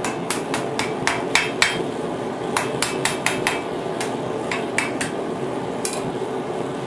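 Hand hammer striking the red-hot end of a 10 mm steel rod on an anvil, forging out the bowl of a small spoon. Quick ringing blows, about four a second, come in two runs with a short pause between them, then a few slower strikes that stop about six seconds in.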